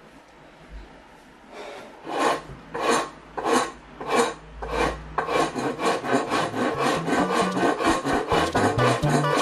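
Hand file rasping along the curved cut edge of a wooden board, starting about a second and a half in: slow strokes about every half second, then quicker, steadier strokes. A music bass line comes in under it in the second half.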